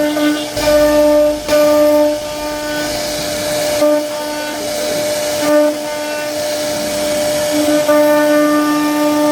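CNC wood router spindle running with a steady whine while the bit carves a wooden door panel, with a hiss of cutting noise that comes and goes.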